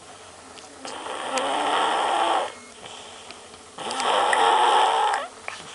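Young boy snoring in his sleep: two long snoring breaths about three seconds apart, each lasting about a second and a half.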